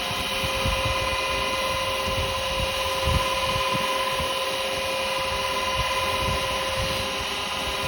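Wood lathe running steadily with a spinning yew workpiece, giving a steady motor whine over a low rumble; the whine drops away near the end.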